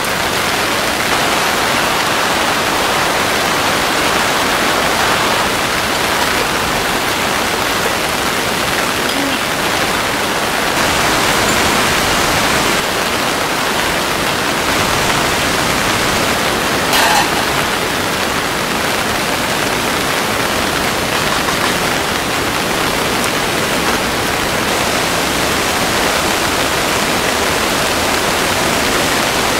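Heavy rain falling steadily, an even hiss. Once, a little past the middle, a single short click.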